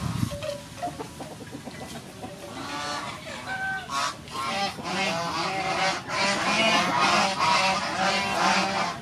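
Farmyard fowl calling over and over, the calls growing louder and more frequent from about three seconds in.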